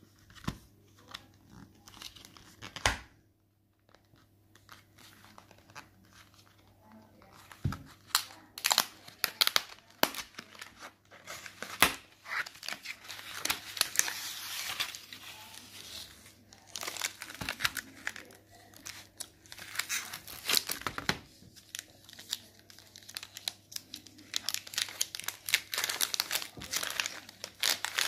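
Chocolate bar wrapper being torn open and crinkled by hand. A few sharp rustles come first, then a short lull, then crinkling and tearing for most of the rest, with the busiest stretches past the middle and near the end.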